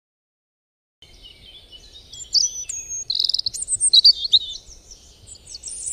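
Songbirds chirping and whistling in a busy morning chorus, many quick, high, sliding notes from several birds at once; it starts about a second in out of silence and grows louder about two seconds in.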